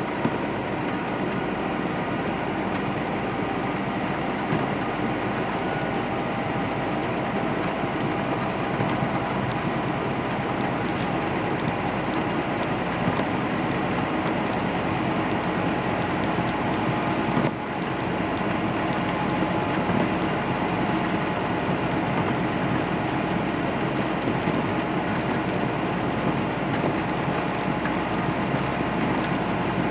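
Steady in-cab running noise of a semi truck on the move: the diesel engine's steady hum under the hiss of tyres on wet pavement.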